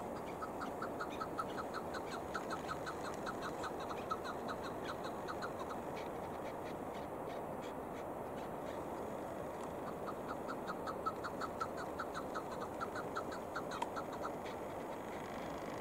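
Chukar partridge calling: two bouts of rapid, evenly repeated chuck notes, about four a second, the second bout starting about ten seconds in, over a steady background hiss.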